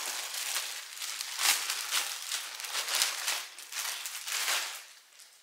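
Thin plastic poly bags crinkling and rustling as they are handled and opened, in irregular bursts that trail off near the end.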